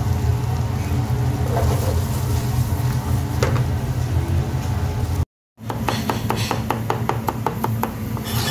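A pan of rigatoni in cream sauce sizzling on the stove over a steady low hum. About five seconds in it cuts off, and a chef's knife chops red onion on a cutting board in quick, even strokes, about five a second.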